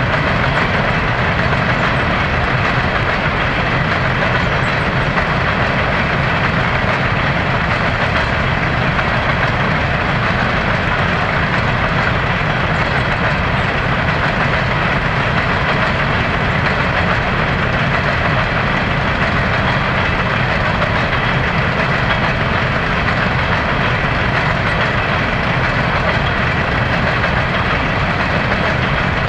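CSX coal train's hopper cars rolling past, with the steady noise of steel wheels running on the rails.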